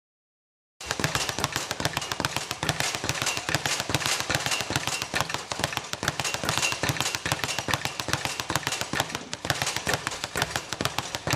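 Dense, rapid crackling: a steady stream of many small sharp pops, starting abruptly about a second in after dead silence.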